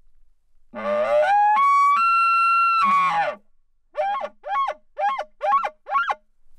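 Elk bugle call blown through a hand-held bugle tube, imitating a bull elk to draw a response. It starts as a low growl, climbs in steps to a long high whistle, then drops away, and is followed by five short chuckles.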